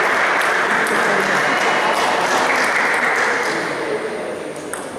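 Table tennis balls clicking off bats and tables at irregular moments over a steady din of hall noise and voices, which eases off near the end.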